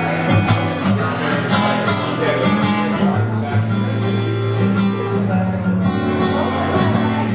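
Acoustic guitar being strummed, its chords ringing on between strums.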